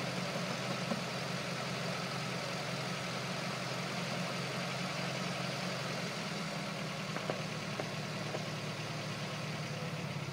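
Toyota four-wheel-drive truck's engine running steadily at low speed while the truck crawls over logs, with a few faint clicks about seven to eight seconds in.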